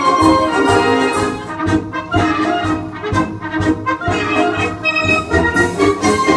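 Ceremonial brass music playing, trumpets and trombones holding sustained notes that change about every second.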